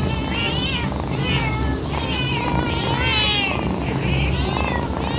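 A cat meowing over and over: short, high calls that rise and fall, about one a second, over a steady low hum.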